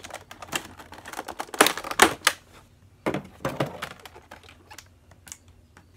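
Hands unpacking a vinyl figure from its box and plastic packaging: a quick, irregular run of clicks, knocks and rustles, loudest about two seconds in and again about three seconds in.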